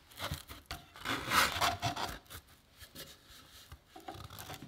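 Sandpaper strip rubbing and scraping as it is wound by hand onto the metal drum of a Jet 18-36 drum sander while the drum is turned, in uneven surges with a few light clicks.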